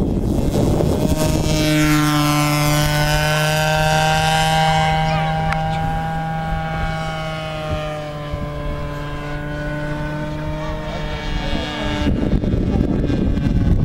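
Small combustion engine of a radio-controlled model plane in flight, a steady buzzing note that comes in about a second and a half in, sags slightly in pitch and loudness midway, and stops near the end.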